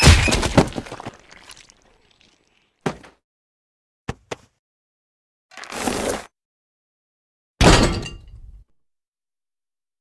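A string of separate cartoon sound effects from Happy Tree Friends, with crash and breaking sounds: a loud crash with a rattling tail at the start, a short thunk about three seconds in, two quick clicks just after four seconds, a rushing noise that swells and stops around six seconds, and another crash near eight seconds.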